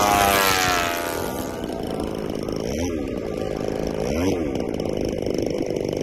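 A Seagull P-47 radio-controlled model plane's O.S. 155 glow engine at high power in a fast low fly-by. Its pitch drops steeply as it passes in the first second or so, then it carries on quieter in the distance with two brief swells up and down in pitch.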